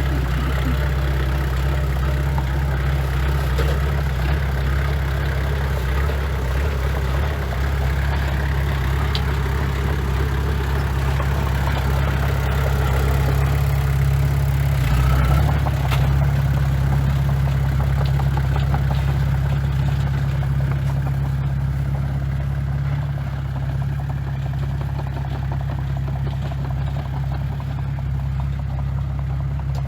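Diesel engine of heavy earthmoving equipment running steadily at constant speed, with some clatter over it.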